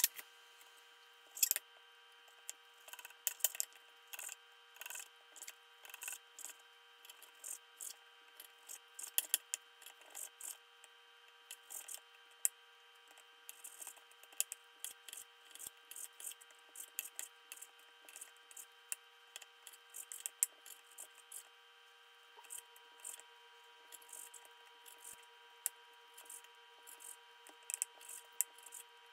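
Knife slicing raw steak into strips on a bamboo cutting board: quick, irregular knocks and scrapes of the blade against the wood, over a faint steady hum.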